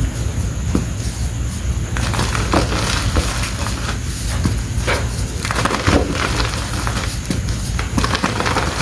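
Fingers crushing blocks of reformed chalk, giving a steady run of irregular crunches and small crackling snaps as the chalk crumbles to powder.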